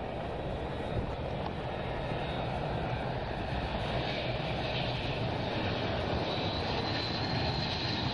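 Boeing C-17's four turbofan jet engines rushing steadily as the transport lands on a snow runway, with a thin high whine from the engines coming in near the end.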